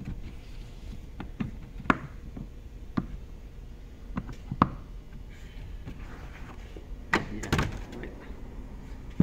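Scattered clicks and knocks of plastic trim panels and the trunk floor panel being handled inside a Mercedes SL 500's trunk, with a louder cluster of thuds about seven seconds in as the floor panel is lifted.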